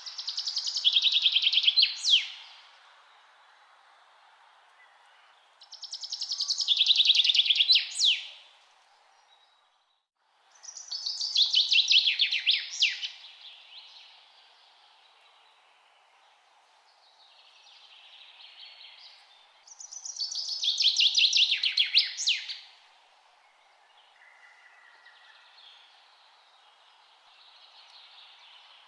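A songbird sings four times, each song a fast rattling trill that falls in pitch and ends in a sharp flourish, about 2.5 s long and repeated every six seconds or so. Fainter songs from a more distant bird come in between, over a steady low background rush.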